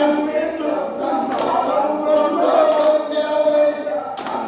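Group of men singing a vallappattu, the traditional Kerala boat song, one man leading at a microphone and the others joining in, with a couple of sharp hand claps.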